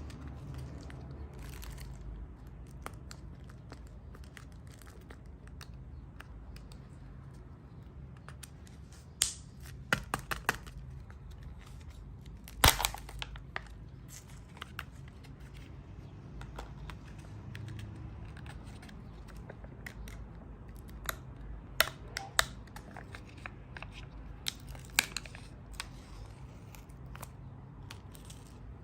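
Hands handling small plastic toys and wrapping: scattered sharp clicks and taps with short crinkling and tearing rustles, over a low steady hum.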